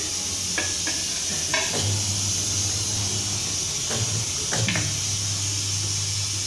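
Tyre changer mounting a tyre onto an alloy rim. The turntable motor hums from about two seconds in, stopping briefly near the four-second mark. A few sharp metallic clicks and knocks from the tyre lever and rim sound over a steady hiss.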